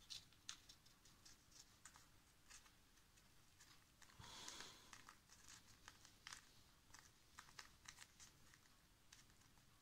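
Very faint crinkling and small ticks of paper masking tape being wrapped and pressed around a folded strip of paper, with a short soft rustle about four seconds in.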